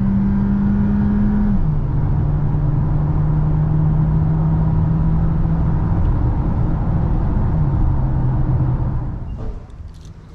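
Mercedes GLA's 1.3-litre four-cylinder turbo petrol engine running under way, its steady note dropping in pitch twice in clean steps as the gearbox changes up, then fading near the end.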